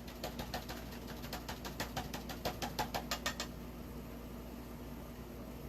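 Stiff chip brush worked quickly back and forth, a run of short scratchy strokes about six a second that stops about three and a half seconds in, leaving a steady low hum.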